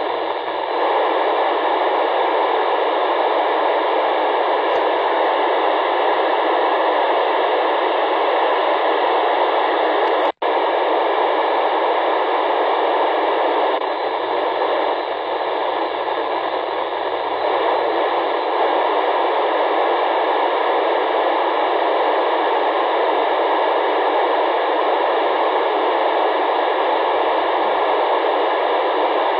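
Amateur radio FM receiver tuned to the SO-50 satellite downlink, giving a steady radio hiss with no voice coming through. The hiss cuts out for an instant about ten seconds in.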